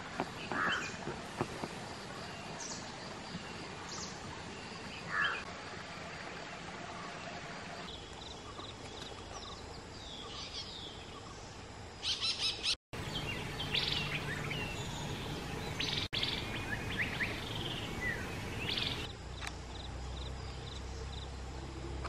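Wild birds calling over a steady outdoor background: a few short calls in the first seconds, then, after a brief dropout, a busier run of high chirps and trills.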